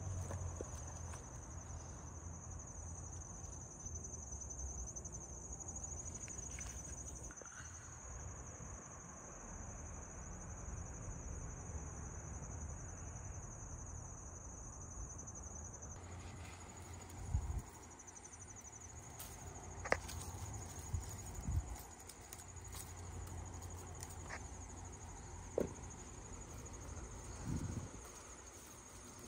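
Insects trilling in a steady high-pitched tone, with a few brief soft knocks in the second half.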